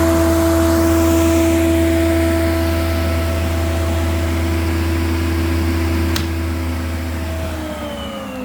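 Martin T53 surface planer running idle with a steady hum and whine. A sharp click comes about six seconds in, and near the end the pitch falls steadily as the machine is switched off and its cutterhead spins down.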